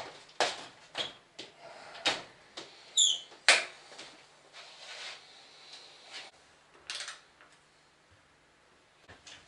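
Scattered metal clicks and knocks from tools working a new square-taper bottom bracket into a bicycle frame, with one short high squeak about three seconds in.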